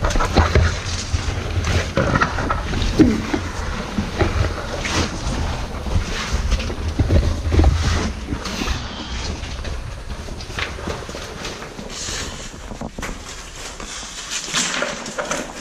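Cavers crawling over wet river pebbles in a low passage: irregular scraping and clattering of stones under knees and rubber boots, over rumbling handling noise on the microphone.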